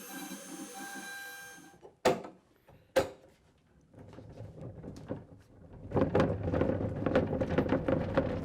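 A small benchtop CNC router runs a test cut. A steady motor whine stops about two seconds in, two sharp clicks follow, and then a fast, clattery cutting noise builds and grows loud for the last couple of seconds.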